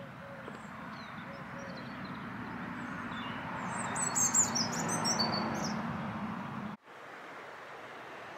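Small birds chirping and singing, loudest about halfway through, over a steady background rush that swells and then drops away suddenly near the end.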